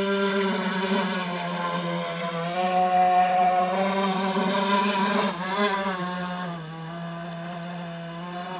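T2M Barracuda RC model boat with a brushless electric motor, running across the water: a steady motor whine that wavers in pitch about five seconds in, then turns fainter from about six and a half seconds.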